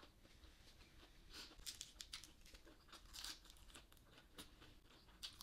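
Crunchy vegetables being bitten and chewed: a run of crisp crunches in the middle, fainter chewing around them.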